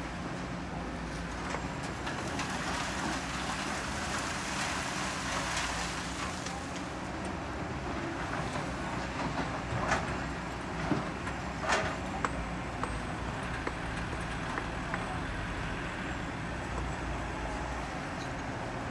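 Kobelco hydraulic excavator's diesel engine running steadily while it loads sand and stones into a dump truck, the load rushing into the truck bed for a few seconds. Stones knock sharply against the truck a few times around the middle.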